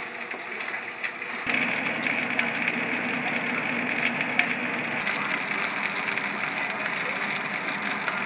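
Pieces of fish frying in hot oil in a pan, a steady sizzle that gets louder about a second and a half in and brighter again about five seconds in.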